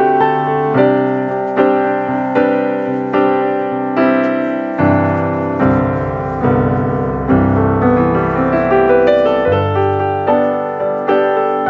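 Background piano music: notes and chords struck at an even, unhurried pace, each one fading before the next.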